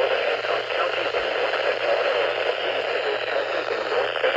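NOAA Weather Radio broadcast heard through a radio receiver: a steady hiss of static with a faint voice under it and a low hum.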